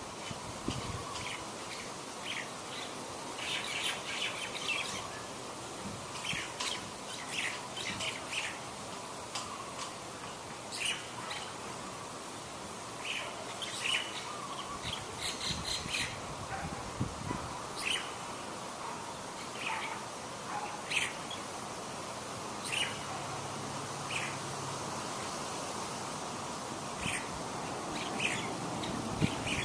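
Birds chirping: short calls come irregularly throughout, several in quick clusters, over a steady background hiss.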